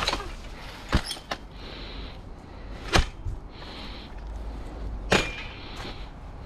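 A few sharp clicks, about one, three and five seconds in, over a steady low rumble and hiss.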